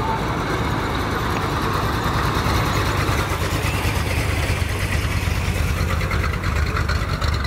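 Hot rod sedan's engine running at low speed as the car rolls slowly past, a steady low exhaust note with a fast pulsing that grows more distinct in the second half.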